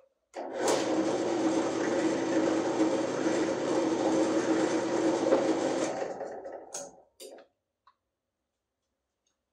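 Craftsman benchtop drill press running steadily for about five and a half seconds as its bit churns a cup of frozen mix, then winding down, followed by a couple of short knocks.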